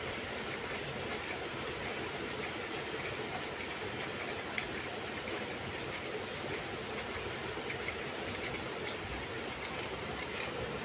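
A German Shepherd licking ice cream out of a small cup on the floor: irregular faint lapping clicks over a steady background noise.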